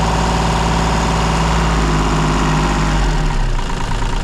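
Mini digger's diesel engine running at a steady speed, then its revs falling over about a second and a half, starting some two seconds in, settling to a lower idle.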